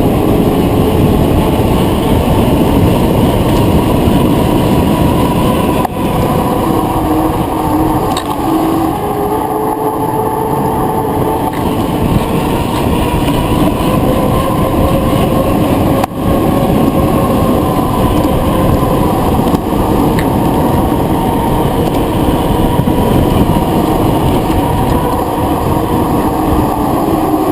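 Wind rushing over the microphone and road rumble from a bicycle descending at speed, a loud steady noise with a faint whine that slowly drifts in pitch.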